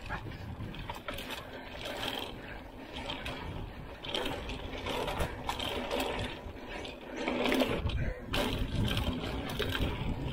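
Mountain bike rolling fast down a dirt singletrack: tyres on dirt and loose stones, the bike rattling over bumps, and the rapid ticking of the freewheeling rear hub. A steady low rumble of wind on the handlebar camera runs underneath.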